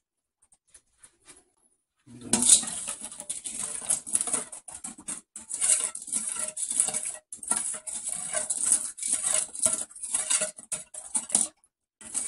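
Metal spoon stirring and scraping around a stainless steel mixing bowl of sorrel drink, mixing in added sugar: a quick, irregular run of scrapes and clinks that starts about two seconds in and stops just before the end.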